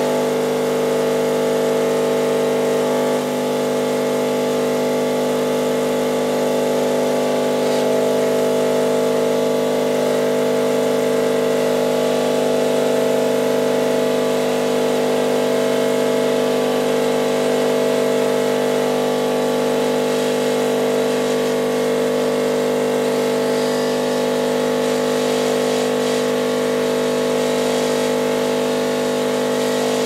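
Rancilio Silvia espresso machine's vibratory pump running steadily, a loud even buzz, while pulling a double espresso shot. The shot is running very slowly, with the pump pushing water through coffee ground too fine.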